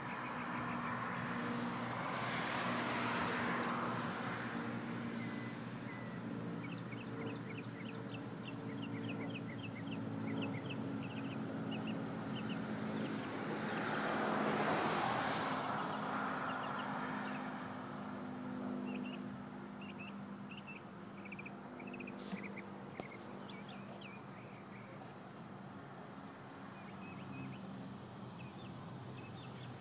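Outdoor traffic ambience: two vehicles pass by, one a few seconds in and another about halfway, each a slow rise and fall of road hiss, over a steady low hum. Small birds chirp in quick runs, and there is a single sharp click about three quarters through.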